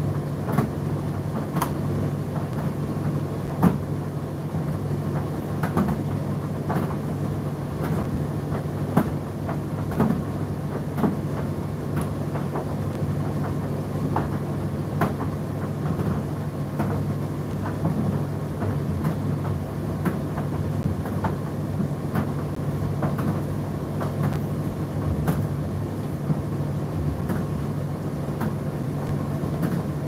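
Indesit IDC8T3 condenser tumble dryer running: a steady motor and fan hum, with the load tumbling in the drum and giving irregular light clicks and knocks.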